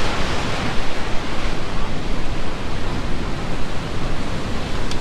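Steady rushing noise of wind and rough surf, with wind buffeting the microphone in a fluctuating low rumble.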